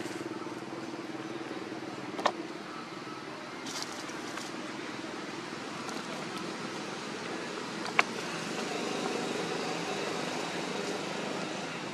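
Steady background rumble of distant motor traffic, broken by two short sharp clicks, one about two seconds in and a louder one about eight seconds in.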